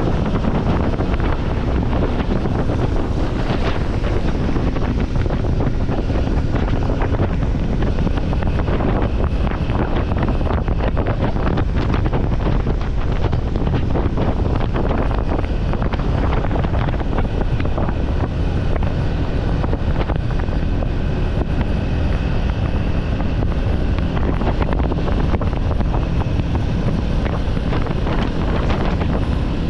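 Wind buffeting the microphone over a steady low rumble, unchanging throughout.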